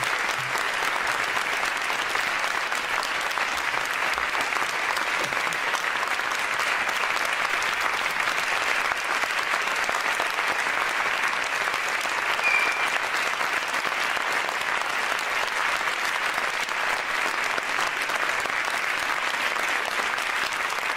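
Audience applauding, a steady, dense clapping by many hands that holds at an even level throughout.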